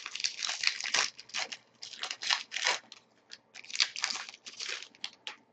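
Hockey card pack wrappers being torn open and crinkled, with the cards being handled: a quick run of irregular rustling and crackling that stops about five seconds in.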